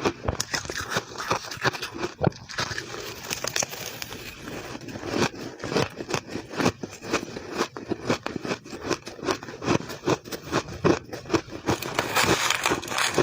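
Shaved ice being bitten and chewed close to the microphone: dense, irregular crisp crunches, several a second.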